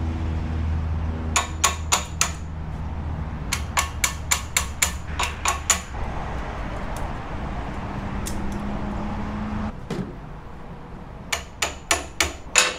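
Quick runs of sharp metallic taps and clicks, several to the second with pauses between runs, from working on a hand tool that is pinched too tight to free it up.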